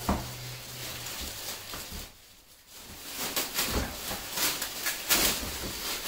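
Plastic wrapping crinkling and rustling as wing panels are handled and unwrapped, in irregular scrapes and crackles with a brief lull about two seconds in.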